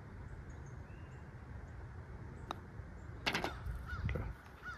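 A golf putter striking the ball: one light click about two and a half seconds in, over a low outdoor wind rumble, followed a moment later by a brief louder sound.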